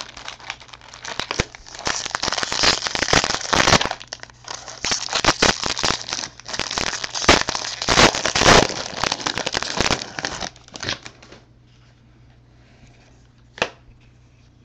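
Foil trading-card pack wrappers being torn open and crinkled, a dense crackling that goes on for about eleven seconds and then stops. A single short tap follows near the end.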